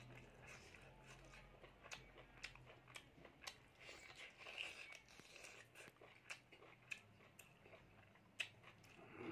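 Faint close-up eating sounds of a person chewing pork and rice: scattered small wet clicks and smacks of the mouth, irregular, with a low hum underneath.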